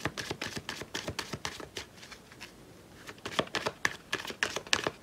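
A deck of cards being shuffled by hand: a rapid run of light clicks and slaps of card edges, easing off about two seconds in, then picking up again for the last couple of seconds.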